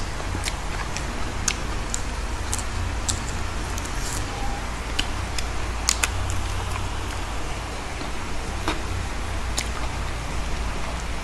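Eating sounds of fried chicken and fresh lettuce: scattered crisp clicks and crackles from handling, biting and chewing, over a steady low rumble.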